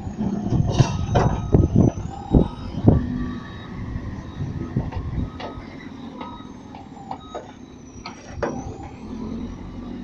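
Soil and rocks tipped from a JCB 3CX backhoe loader's front bucket crash into a steel dump truck bed: a burst of heavy clattering impacts in the first three seconds. After that a diesel engine runs steadily, with a few scattered knocks, as the backhoe backs away.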